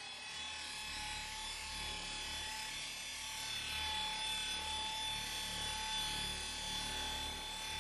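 Cordless orbital polisher with a foam pad running at a steady speed against car paint: a steady motor whine and hum, swelling slightly as the pad is moved over the panel.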